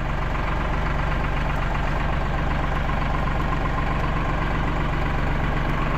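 Tractor engine running steadily, with an even low hum and no change in speed.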